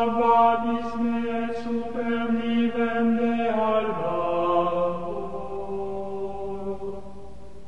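Chanted singing in the soundtrack: long held notes that step down to a lower pitch about four seconds in, then grow fainter near the end.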